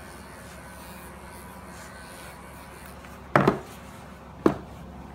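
Two sharp knocks on wood about a second apart, the first a quick double: a plastic grooming brush being set down on a wooden tabletop.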